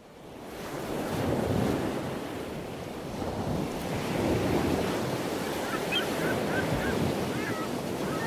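A rushing, wind-like noise swelling in from silence, with a few short wavering chirps in the second half.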